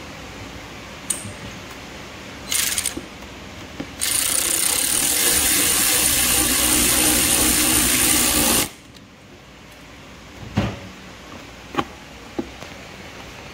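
Power drill spinning a socket on a long extension, driving a screw down into a generator's plastic housing: a short burst, then a steady run of about four and a half seconds that stops suddenly, followed by a few light knocks.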